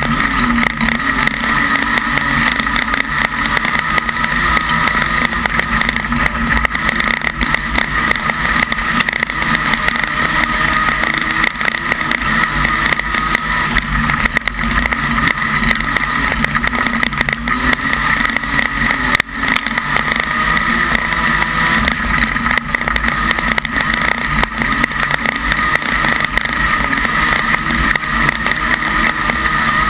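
Modified production speedway car's engine running hard under race load, heard loud and steady from inside the cockpit. There is a brief dip in level about nineteen seconds in.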